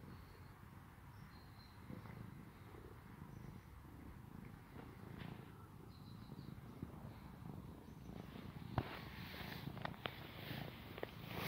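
Domestic cat purring steadily as it is stroked. Rustling near the end, with one sharp click about nine seconds in.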